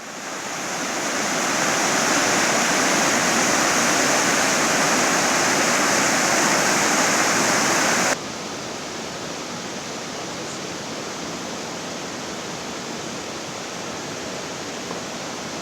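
Rushing water of a mountain creek or waterfall, a loud steady roar that swells in over the first second or so. About eight seconds in it cuts suddenly to a quieter, steady rush of water.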